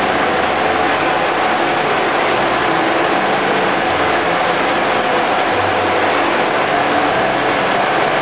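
A suction boat's engines and pump machinery running steadily and loudly, a constant drone with a steady hum through it.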